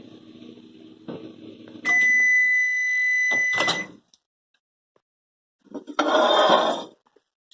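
Electrolux ME28S microwave oven running with a low hum that stops about two seconds in, as a long steady beep sounds for about two seconds, the signal that the heating cycle has ended. A click follows, and about a second of loud noise comes near the end.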